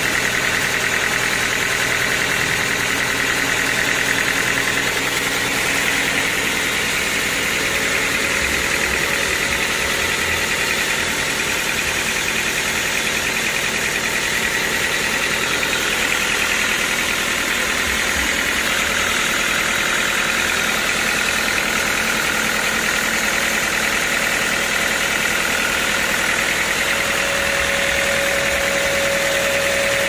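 Band sawmill running and sawing a large mahogany log into boards: a steady, loud mechanical noise of the drive and blade with a high whine. A lower steady tone joins in near the end.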